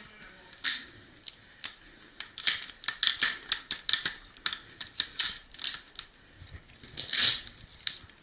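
A string of irregular short, sharp clicks and clacks, around twenty of them, bunched most closely between about two and a half and six seconds in, with a longer rustling clatter about seven seconds in.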